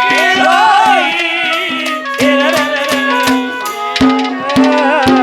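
Live Haryanvi ragni folk music: fast hand-drum strokes over a steady held low note, with a melody line that glides up and down.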